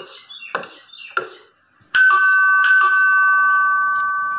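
Ding-dong doorbell chime about halfway through: a higher tone then a lower one, both ringing on and fading slowly. Before it, a few short faint taps.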